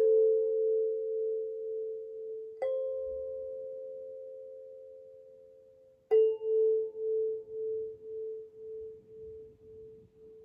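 Hokema sansula, a kalimba on a frame-drum skin, plucked on the same tine three times a few seconds apart, each note ringing out and fading. After the last pluck the note wavers, swelling and dipping about twice a second as it dies away.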